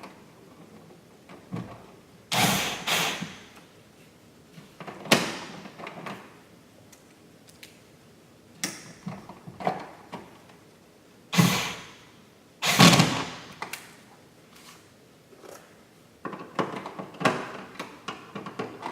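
A dimmer switch being screwed into a wall electrical box: a series of short scrapes and knocks from the screwdriver and the switch's metal mounting strap, with a busier patch of handling near the end.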